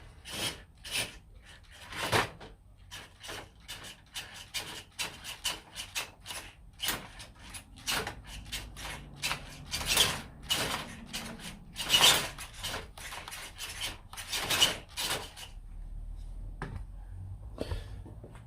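A small RC car's tyres and chassis scraping and crunching over rough ground in irregular bursts, several a second, with a few louder scrapes. The car is struggling for grip and ends up stuck, its small motor not powerful enough.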